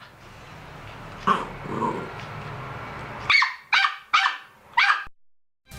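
A dog barking: one bark about a second in, then four quick barks in a row near the end.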